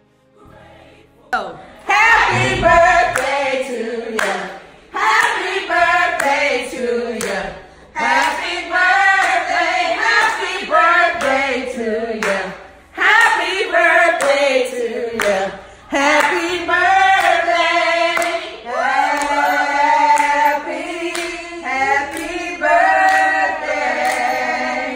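A group of voices singing together, starting about a second in, in phrases with gliding pitch broken by short pauses every few seconds.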